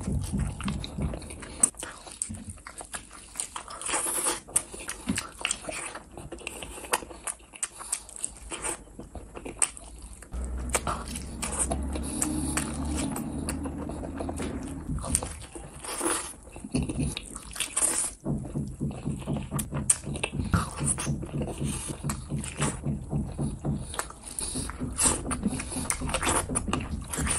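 Close-miked eating sounds: fried eggs bitten and chewed, with many short mouth clicks and smacks throughout.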